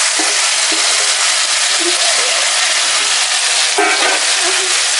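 Soaked rice sizzling as it is dropped into hot ghee and butter in a stainless steel kadai: a steady frying hiss from the wet grains hitting the hot fat, with a short clink about four seconds in.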